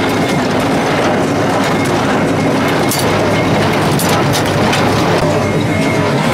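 John Deere 336 hay baler running behind its tractor: a steady, loud mechanical clatter with a few sharp clicks from the baler's moving parts.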